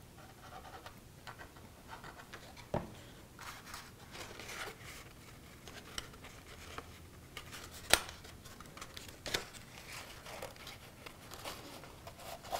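Red cardstock being handled: rustling and scraping as the tabs of a paper heart box are folded and pressed down, with several sharp taps, the loudest about eight seconds in.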